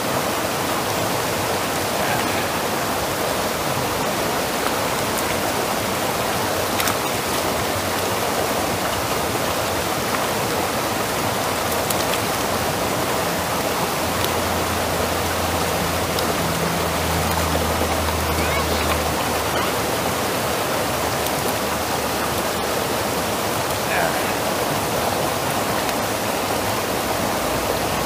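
Creek water rushing steadily over a small rocky cascade, an even unbroken rush. A faint low hum comes in for a few seconds midway.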